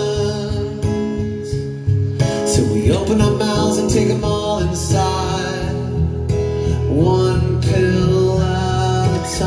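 Live band playing an acoustic arrangement: guitars strummed while a man sings lead into the microphone.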